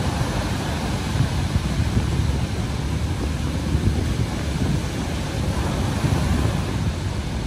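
Ocean surf rushing onto the beach, with wind buffeting the microphone in a steady low rumble.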